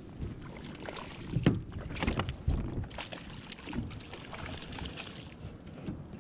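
A hooked trout splashing at the surface beside a plastic kayak, with irregular knocks and rubbing against the hull as the angler shifts and plays the fish. The loudest thumps come about a second and a half and two and a half seconds in.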